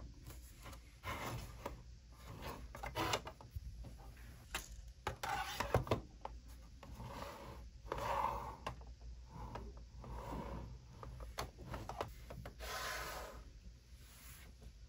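Plastic filament spools knocking and rubbing against a 3D-printed plastic crate as they are set into it and shifted about, with scattered light clicks and short scrapes.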